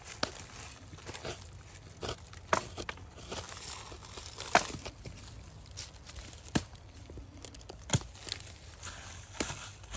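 A knife blade carving and chipping into a dry, weathered log, with light scraping. Sharp, irregular knocks and cracks come roughly once a second, the loudest about halfway through.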